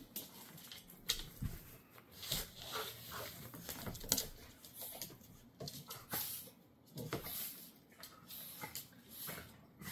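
A large dog and a small dog play-wrestling on a laminate floor: irregular scuffling, with claws and paws clicking and pattering on the boards and bodies shuffling on a blanket.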